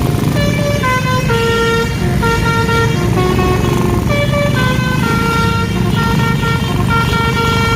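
Indonesian bus's multi-tone basuri 'telolet' horn playing a tune of held notes that step up and down, over the low rumble of the bus's engine.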